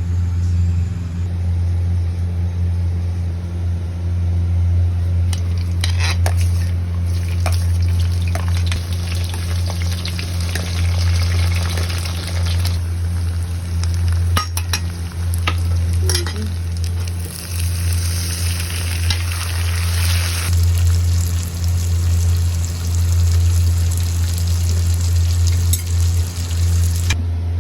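Food sizzling in a pan while it is stirred, with a spoon clicking against the pan now and then, over a steady low hum. The sizzle is strongest in the middle stretch.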